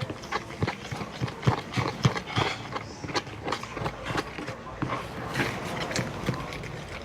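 A spoon clicking and knocking against a container while stirring a slime mixture of white glue and toothpaste, in quick irregular taps several times a second.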